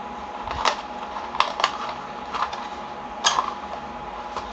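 Cardboard inner packaging of a CPU retail box being pulled open by hand: about five short, sharp scrapes and clicks of card over four seconds, over a steady faint hum.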